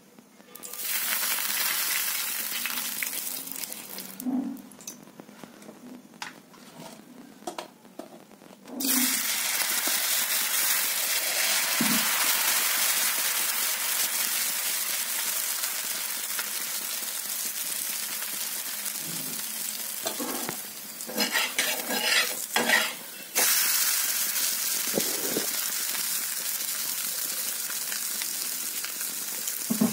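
Rice and chana dal batter sizzling as it fries on a hot griddle. There is a burst of sizzling about a second in, then a quieter spell with a few knocks. Loud, steady sizzling starts about nine seconds in, and a run of spoon strokes on the pan comes about two-thirds of the way through.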